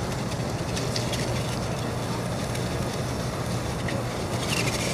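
Steady outdoor background noise, a low hum under a hiss, with a few faint light clicks.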